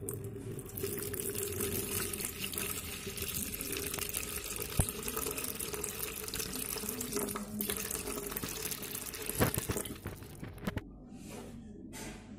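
A stream of water pouring into a plastic bucket and filling it. The flow stops about two seconds before the end, leaving a few separate drips.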